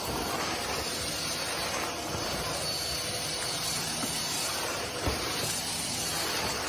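A steady hiss, with a small thump about five seconds in.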